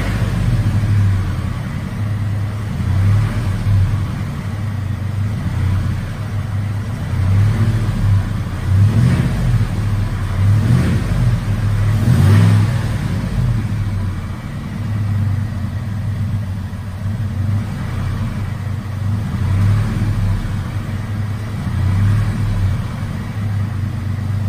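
Ford F-150's 5.0 V8 engine being revved in repeated blips, with a metallic tap-tap-tap ticking. The owner takes the tick for out-of-whack cam phasers caused by internal engine damage; it is the known 5.0 piston slap or typewriter tick complaint.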